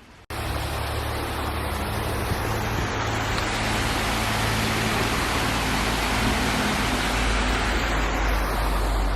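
A road vehicle passing close by: steady low engine hum under tyre and road noise that swells to a peak midway and fades as it moves off.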